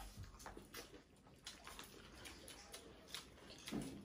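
Faint eating sounds: chewing, lip smacks and light clicks, with a short murmur near the end.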